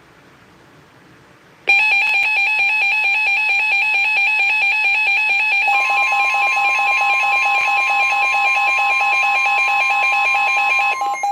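Weather radio alerting for a flash flood warning: about 1.7 s in a loud, rapidly pulsing electronic alarm starts abruptly. Around 6 s in the steady 1050 Hz NOAA Weather Radio warning tone joins it, and the tone drops out shortly before the end.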